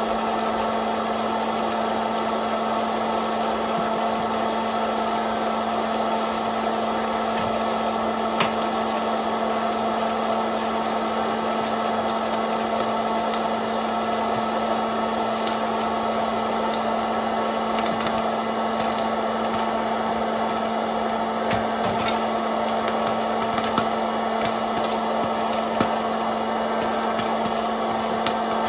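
A popcorn maker's motor runs with a steady hum while kernels pop now and then as sharp cracks. The pops come more often in the last ten seconds or so.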